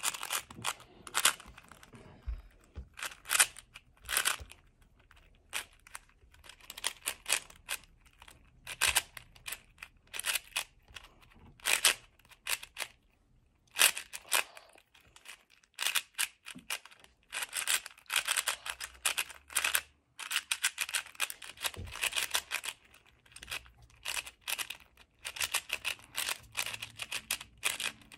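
MoYu AoSu 4x4 speedcube being turned fast in a speedsolve: rapid bursts of plastic clicks and clacks as the layers turn, broken by short pauses.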